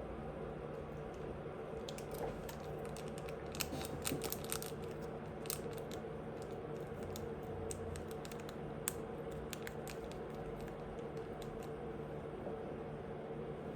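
Close-up eating: chewing with scattered short clicks and crunches, thickest a few seconds in, over a steady low hum.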